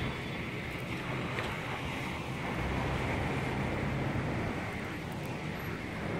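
Winter storm wind blowing, a steady rushing noise with a low rumble underneath, partly wind buffeting the microphone.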